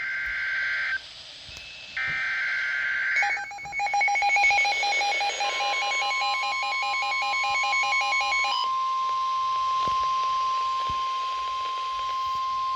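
Emergency Alert System tones on a NOAA Weather Radio broadcast. Two bursts of the buzzing, warbling SAME data header are followed about three seconds in by a rapid pulsing electronic alert sound. From about five seconds a steady, single-pitched warning alarm tone holds on, marking a new severe thunderstorm warning.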